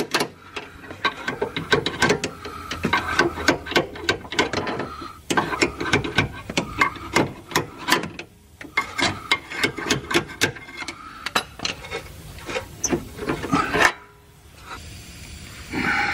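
Rapid metal-on-metal clicking and rasping as the rusty lower control arm pivot bolt of a Range Rover L322 is worked out of its bushing by hand, in uneven spurts with a short pause near the end.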